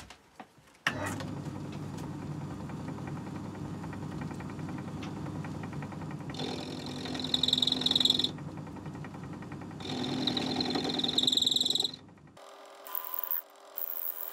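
Myford ML7 lathe starting up about a second in and running steadily, turning a square steel bar held in a four-jaw chuck. Twice the tool cuts into the steel, each cut adding a high-pitched ring for about two seconds. Near the end the low motor hum cuts out abruptly, leaving a quieter steady tone.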